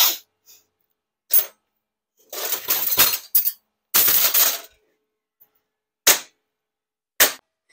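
Handling and rummaging of metal parts at a workbench: a few separate clattering and scraping noises, two of them lasting about a second, with quiet gaps between.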